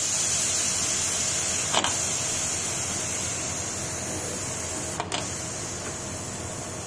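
Steam hissing steadily out of a United aluminium pressure cooker taken off the heat after its first whistle, slowly fading as the pressure drops. Two light clicks come about two seconds and five seconds in.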